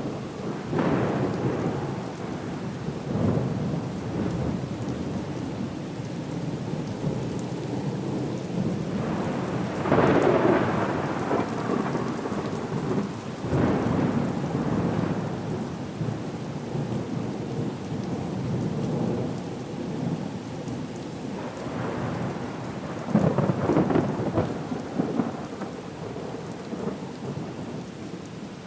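Storm soundscape at sea: a steady wash of rain and water, with louder rumbling swells about a second in, around ten and fourteen seconds in, and again near the end.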